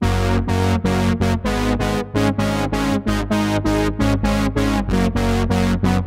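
Moog Muse eight-voice analog polyphonic synthesizer playing its LA Session Brass factory preset: short synth-brass chords repeated about four times a second.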